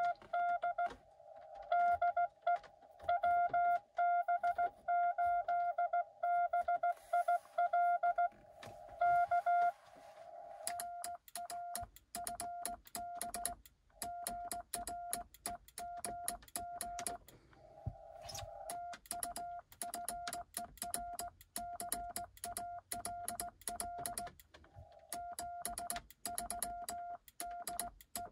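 Morse code (CW) tones near 700 Hz from a Xiegu X6100 transceiver, keyed on and off. The tones are loud for about the first ten seconds, then quieter, and from then on rapid sharp clicking from a cootie (sideswiper) key's contacts goes with them as the code is sent.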